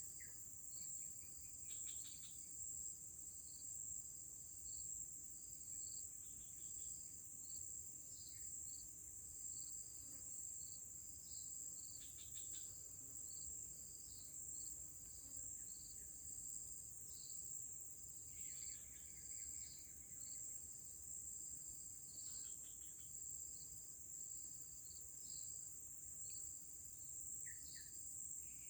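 Insects, crickets, calling: a steady high-pitched drone with a fast, regular chirping over it, and a few short bird calls now and then.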